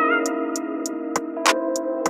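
Intro music: sustained chords with a light ticking beat about three times a second.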